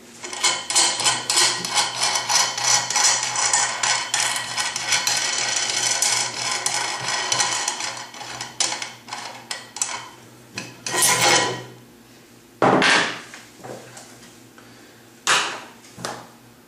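Rapid metallic clicking and rattling for about eight seconds as a home-made clutch spring compressor is unwound from a transmission clutch drum. After that come a few separate knocks and scrapes as the wooden press plate and bolts are lifted off and set down.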